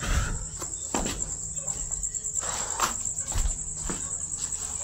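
Crickets chirping in a steady, high, pulsing trill. Scattered knocks and rustles of movement close to the microphone run over it; the loudest is a thump and rustle right at the start.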